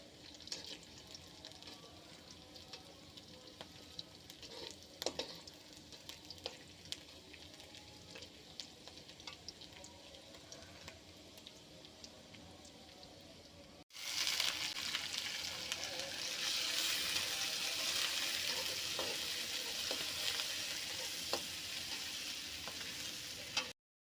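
Food frying in oil in a pan, with stirring and small utensil clicks. About fourteen seconds in, it cuts to louder, steady sizzling, which stops abruptly near the end.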